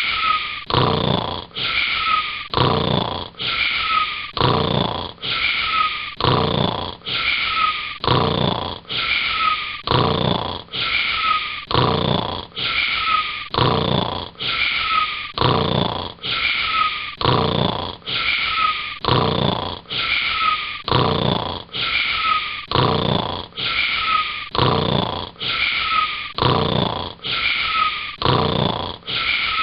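Cartoon girl's snoring, repeated at a very even pace of about one snore a second. Each snore is a breathy rush with a short, slightly falling whistle in it.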